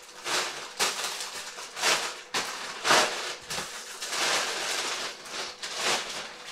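Thin plastic carrier bag and plastic balloon packets rustling and crinkling in a string of irregular bursts as the packets are pushed into the bag.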